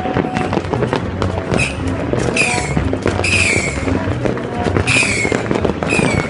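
Fireworks and firecrackers going off in a dense, continuous crackle of pops and bangs, with about five short whistles that fall in pitch. Music plays underneath.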